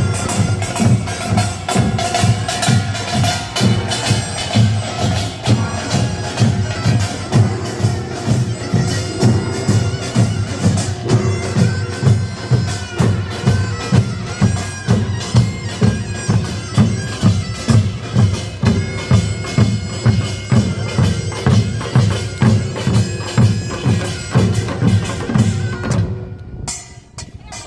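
Korean nongak farmers' band music: fast clanging of small gongs over steady drum beats, with a reedy wind line held above. The playing breaks off abruptly near the end.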